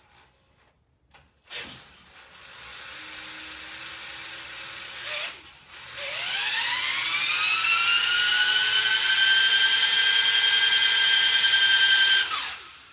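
Power drill spinning a reharvested top-load washing-machine motor as a generator to charge a 48-volt battery bank. It runs briefly at part speed, stops for a moment, then comes back as a whine that rises over about two seconds to full speed and holds steady before winding down near the end.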